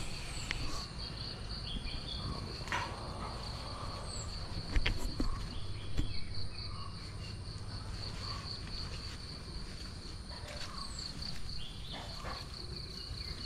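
Insects chirping in a steady, evenly pulsed high trill, with faint bird chirps and a few soft clicks.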